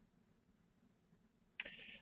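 Near silence: room tone with a faint low hum, and a faint voice starting about a second and a half in.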